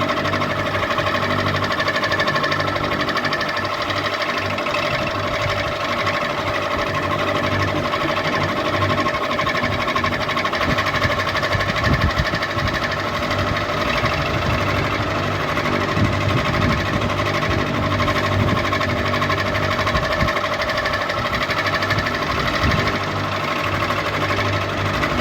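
Ceiling fan running steadily: a motor hum with a steady whine above it, an uneven mechanical rattle, and a few sharper knocks around the middle.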